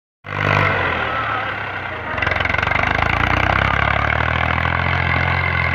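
Massey Ferguson MF 240 tractor's three-cylinder diesel engine running while the front blade pushes earth. About two seconds in it gets louder with a fast, even beat.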